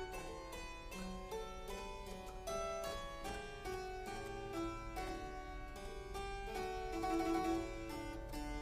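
Background music: a harpsichord playing a quick run of plucked notes, several sounding together.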